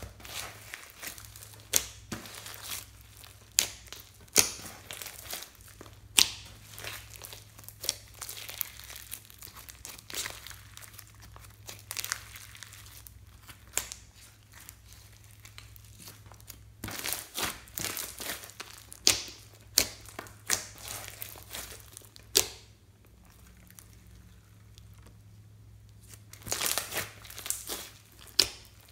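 Hands kneading, poking and stretching glittery slime: sticky squishing and crinkling, with irregular sharp pops and snaps. A quieter stretch falls a little past the middle.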